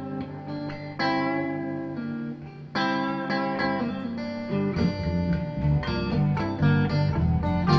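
Electric blues band starting a song: guitar playing ringing chords, with a bass line and rhythm coming in about halfway through.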